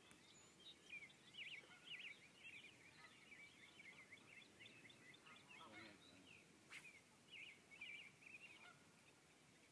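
Faint birdsong: a steady stream of short high chirps and twitters, with one lower call near the middle and a single sharp click about seven seconds in.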